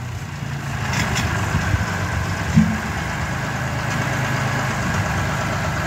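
Tractor engine running steadily, with a couple of faint clicks about a second in.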